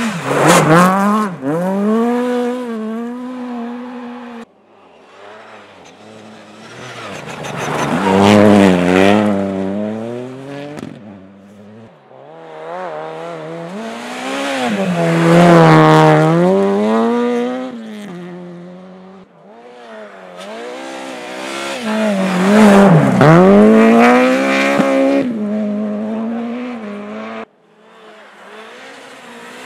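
Rally cars passing one after another through a snowy corner, each engine revving high, its pitch dropping and climbing as the driver lifts and accelerates, then fading away. Four loud passes, with another car's engine rising near the end.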